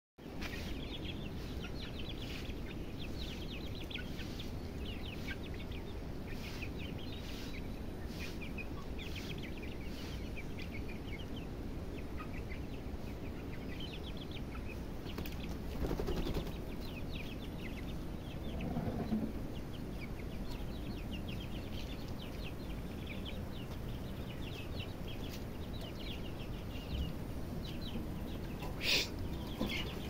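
Young Aseel chicks peeping, many short high cheeps one after another, over a steady low background noise. A short sharp, louder sound comes near the end.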